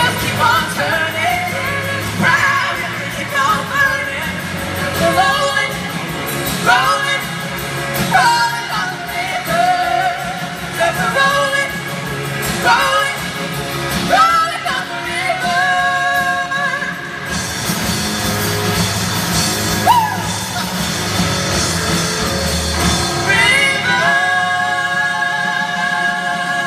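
A pop-rock song with a lead vocalist singing over a band, ending on long held notes near the end.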